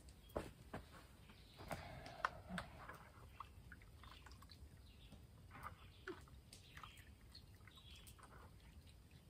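Near silence: faint outdoor ambience with a few soft clicks in the first few seconds and scattered faint short chirps.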